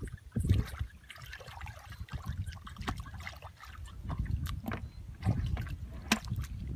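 Hands groping and squelching in shallow muddy water, with irregular wet splashes and drips; a sharper splash comes near the end.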